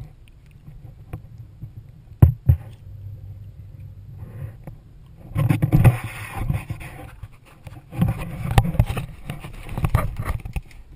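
Handling noise from a camera being lifted out of the water and held: two sharp knocks about two seconds in, then bursts of rubbing, scraping and clicking, over a low steady rumble.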